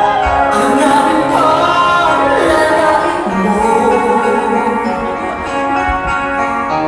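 Music with a singing voice: a gliding sung melody over sustained instrumental chords.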